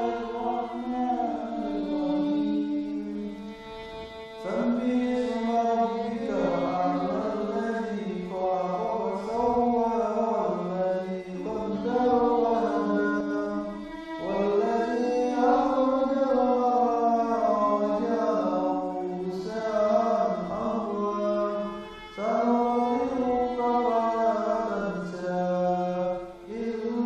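Background music of chanted singing: a voice holds long, wavering notes in phrases several seconds long, with short breaks between them.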